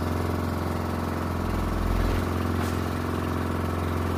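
Outrigger boat's engine running steadily under way, a low, even hum.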